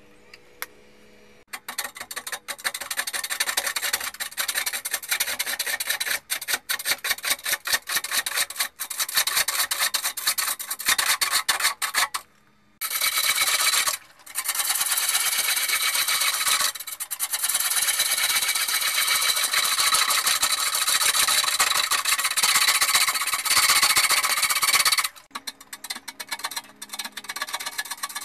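A turning tool cutting into a large red oak bowl blank spinning on a wood lathe, a harsh scraping cut. At first it comes and goes in rapid chatter, then runs more continuously from about halfway, with one short break. Near the end the cutting stops and the lathe's motor hum is left.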